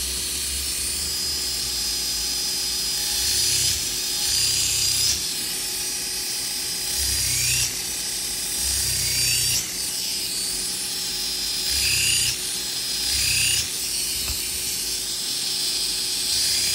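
NSK finger belt grinder running with a steady high-pitched whine while chamfering the edges of a steel part. The belt is pressed onto the metal about half a dozen times, each pass adding a grinding rasp and a low rumble, with the pitch dipping under the load and swinging back up as the belt is lifted off.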